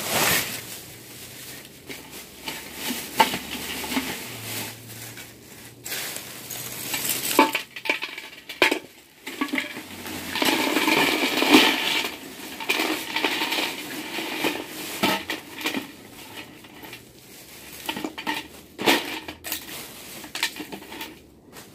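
Parts of a computer keyboard being handled and pried apart by hand: irregular clicks, clinks and clatter of small hard pieces, with a denser stretch of scraping and rattling about ten to thirteen seconds in.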